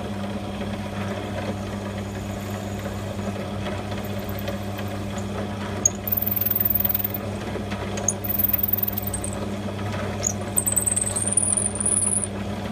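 Drill press motor running with a steady hum, with three stretches of the bit drilling a pin hole through wooden knife-handle scales, squealing high as it cuts, about six, eight and eleven seconds in.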